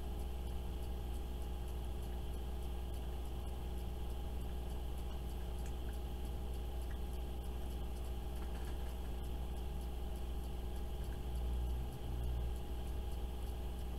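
A steady low hum of room noise, with a few faint ticks and a slight swell in the hum near the end.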